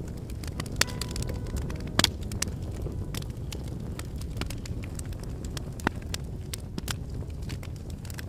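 Wood fire burning with a low steady rumble and frequent sharp crackles and pops; the loudest pop comes about two seconds in, and others come at about one second and six seconds in.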